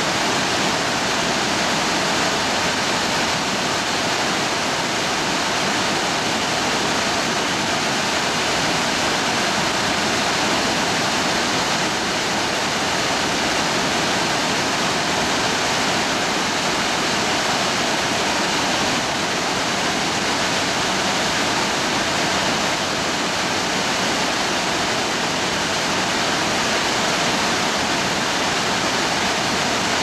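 Sanjo no Taki, one of Japan's tallest waterfalls, pouring steadily: a continuous, even rush of falling water with no breaks or changes.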